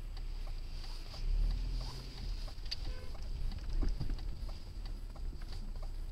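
Car interior sound picked up by a dashcam's own microphone: a low steady engine and road rumble with a thin steady high whine and faint regular ticking, about two to three ticks a second, plus a couple of brief soft knocks.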